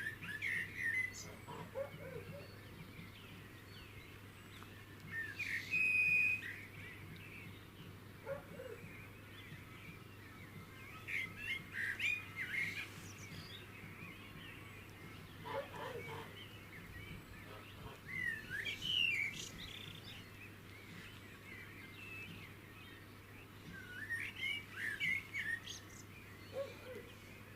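A songbird singing short, quick warbling phrases every few seconds, with a few brief lower calls in between, over a faint steady low hum.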